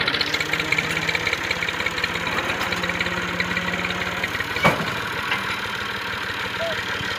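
Diesel tractor engine running steadily at idle, with one sharp metallic knock a little over halfway through.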